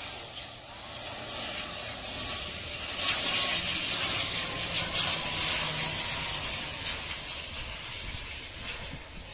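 ATR 72-600 turboprop airliner flying low overhead on final approach: its engines and propellers give a hissing drone that swells to a peak about three to five seconds in and then fades as it moves off toward the runway, with a faint whine that drops slightly in pitch as it passes.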